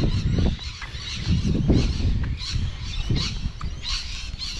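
Birds calling outdoors, a steady string of short, high calls about twice a second, with irregular dull low thumps underneath.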